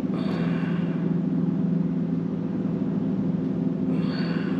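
A fishing boat's motor running at a steady pitch, an even drone as the boat turns.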